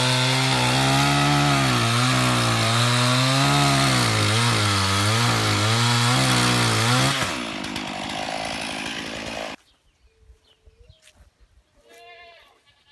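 Two-stroke chainsaw running at high revs, its pitch dipping and recovering again and again as it bogs in the cut. About seven seconds in the engine note drops away, and the sound stops suddenly a couple of seconds later, leaving only faint bird calls.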